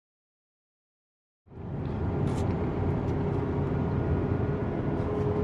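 Silence for about the first second and a half, then car engine and road noise fade in, heard from inside the cabin: a steady rumble with a faint steady hum.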